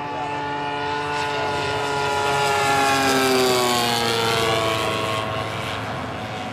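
Engine and propeller of a radio-controlled model Zero making a low pass, a steady buzzing drone that grows loudest about three seconds in and drops in pitch as the plane goes by.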